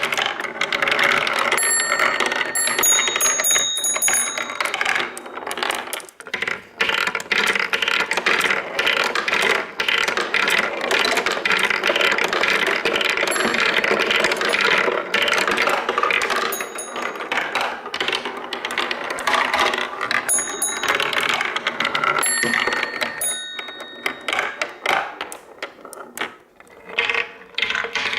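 Many marbles rolling and clattering through a wooden marble run: a dense rattle of rolling and small clicks, with several short bright ringing pings scattered through it. The rattle thins out near the end.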